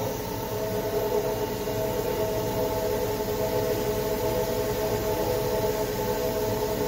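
Vertical machining center's geared spindle running unloaded at a steady 2,500 RPM, giving a steady multi-tone whine over a constant mechanical hum.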